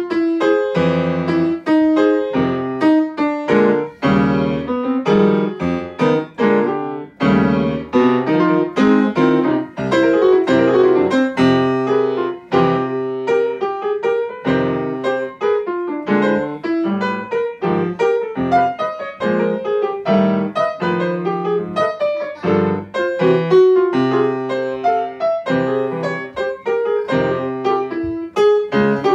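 Grand piano played solo in a jazz style, a continuous stream of notes and chords with no pauses.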